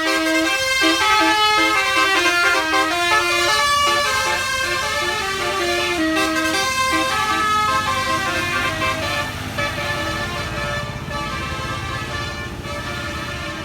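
A bus's basuri telolet musical air horn playing a quick tune of stepped notes, which fades after about eight seconds as the bus's engine rumble takes over.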